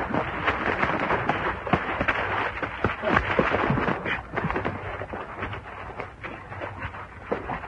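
Large fire crackling: dense, irregular pops and cracks over a steady rushing noise.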